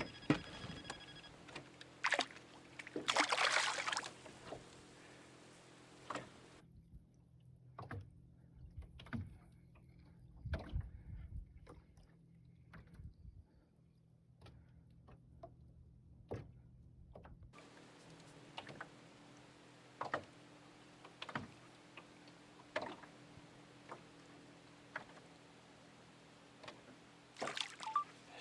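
Water sloshing against the hull of a small fishing boat, with scattered knocks and clicks from gear on board and a faint steady hum.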